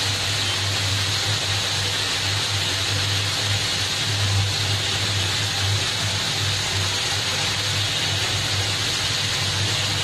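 Stuffed okra simmering in spiced liquid in a wok over a high flame: a steady bubbling sizzle as the water cooks off, with a steady low hum underneath.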